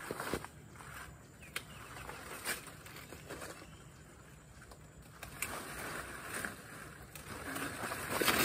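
Cacao tree leaves and branches rustling as they are handled during pruning, with several sharp snips of hand pruners spread through.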